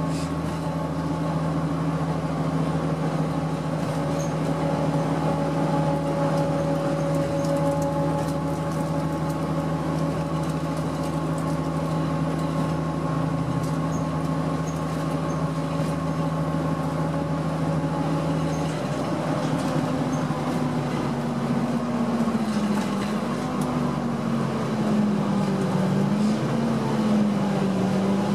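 Cummins ISL diesel engine of a 2006 Orion VII city bus running under way, heard from inside the passenger cabin. It is a steady drone whose pitch shifts about two-thirds of the way through and then wavers up and down.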